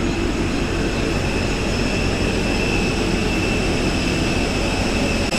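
Jet airliner's engines running steadily: a constant rumble with a steady high whine over it.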